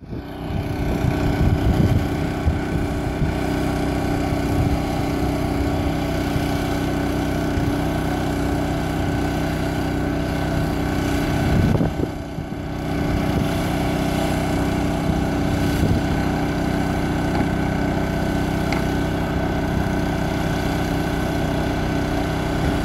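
Engine running steadily at a constant speed, with a droning hum that holds one pitch.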